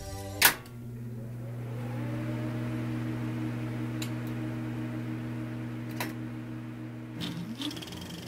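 A short sharp hit about half a second in, then a steady low electric-sounding hum with a few faint clicks, which breaks off about seven seconds in.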